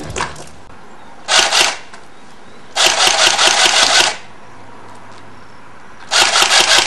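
Airsoft gun firing full-auto bursts of rapid, evenly spaced clacks: a short burst about a second in, a longer one around three seconds in, and another starting near the end.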